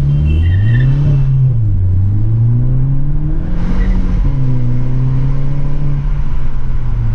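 Skoda Octavia RS245's turbocharged 2.0 TSI four-cylinder with a Milltek and Borla aftermarket exhaust, heard from inside the cabin with the windows down, accelerating through the gears. The engine note rises, drops at a gearshift about a second in, climbs again, drops at a second shift about four seconds in, then holds steady.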